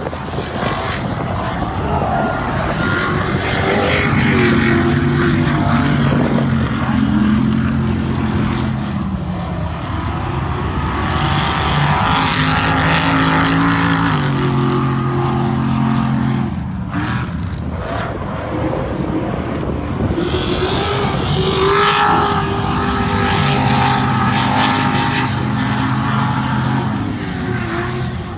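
Ultra4 off-road race cars driving past on a dirt course, their engines revving with the pitch rising and dropping through throttle changes and shifts, in several separate passes.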